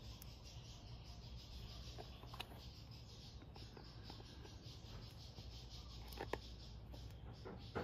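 A few faint clicks of needle-nose pliers handling a small spring clamp on the air box's rubber drain tube, about three spread through, over a low steady hiss.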